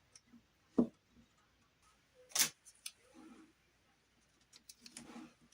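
Scattered light clicks and knocks with faint rustling in between, the sharpest just before a second in and again past two seconds in: trim pieces being handled and set in place.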